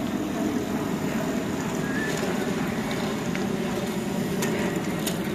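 Steady rumble of wind buffeting a phone microphone on a moving bicycle, mixed with road noise, with two light clicks near the end.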